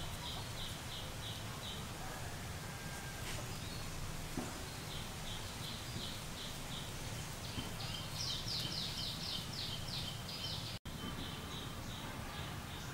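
Outdoor ambience: a bird calling in repeated runs of quick, high chirps, about five a second, strongest a little past the middle. Underneath is a steady low background noise.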